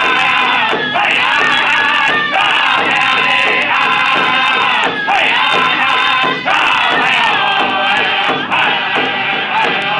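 Powwow drum group: several men singing together in phrases, with short breaks between them, over a steady beat on one large shared drum struck with sticks.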